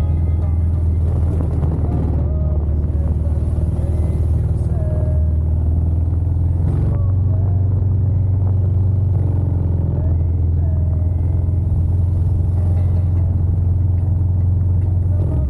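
Motorcycle engine running steadily at a low pitch, rising slightly about seven seconds in.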